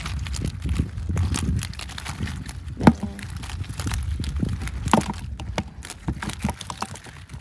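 Irregular knocks and thumps over a low rumble, the sharpest knock about three seconds in and another about five seconds in.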